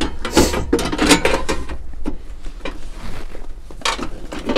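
Hard plastic battery retainer tray being handled and pushed into place on a van's seat base, giving a string of irregular knocks, clatters and scrapes.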